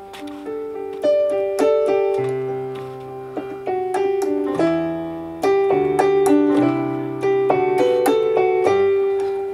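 Yamaha PSR-SX600 arranger keyboard played by hand: chords over a bass line, each struck and left to ring down before the next.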